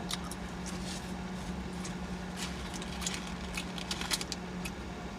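Mouth smacking and wet clicks from chewing a bagel sandwich, scattered irregularly, over the steady low hum of a car.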